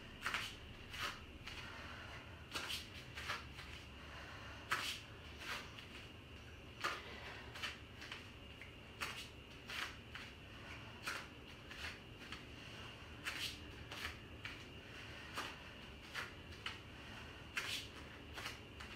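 Short, irregular rustling and breathy sounds, one or two a second: a woman's breathing and footfalls as she does walking lunges with a kettlebell held at her chest.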